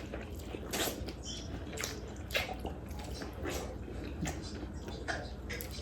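Wet, clicking mouth sounds of seafood being chewed close to the microphone, with irregular sharp clicks and smacks every half second to a second.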